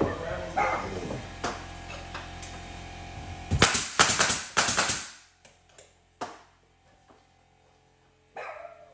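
Nail gun firing a rapid series of sharp shots, driving nails through crown molding into the wall and ceiling, followed by one more single shot.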